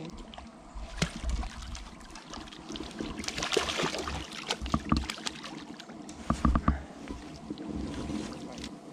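Water splashing and sloshing at the bank as a hooked fish is brought in and landed, with a few sharp knocks in between.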